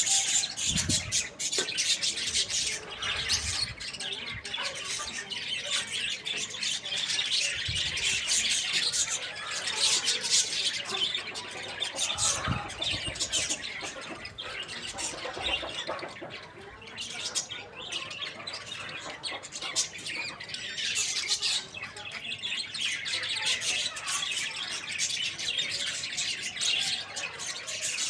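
Many small birds chattering together, with dense, continuous chirping and squawking.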